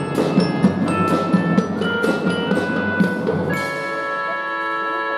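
Children's drum and fife band playing: drums and glockenspiels strike quick rhythmic notes over a steady drum beat, then about three and a half seconds in the band settles onto a held, sustained chord.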